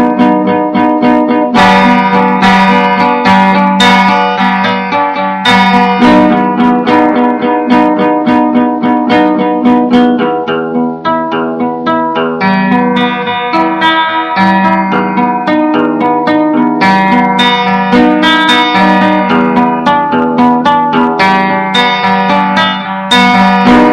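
A strummed string instrument playing an improvised run of chords, struck again and again and changing every second or so. It is recorded loud through a webcam microphone, with poor sound quality.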